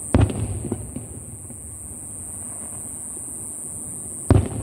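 Two booms of aerial firework shells bursting, about four seconds apart, each followed by a short rumble and a few smaller cracks. A steady high hiss runs underneath.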